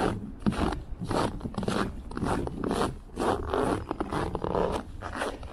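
Footsteps crunching through dry, deep snow at a steady walk, about two steps a second.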